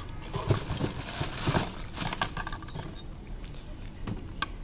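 Hands rummaging through a cardboard box of electronics parts: rustling with several quick knocks and clinks as a speaker cabinet, plastic bag and circuit boards are shifted, and a sharp click near the end as a board is pulled out.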